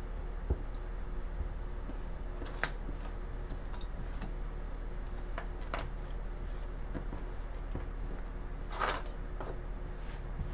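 Small carved basswood parts clicking and tapping as they are handled and set down on a wooden workbench, with hands brushing the bench; one longer rustle near the end, over a steady low hum.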